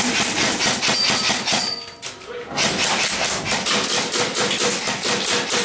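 Airsoft guns firing on full auto: two long bursts of rapid clicking shots with a short break about two seconds in.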